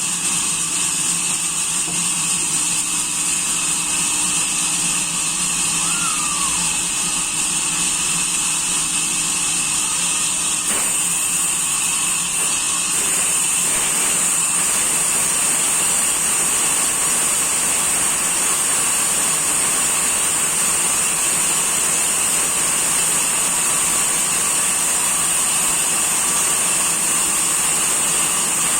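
Chainsaw engine running at a steady speed, with a slight change in its note about eleven seconds in.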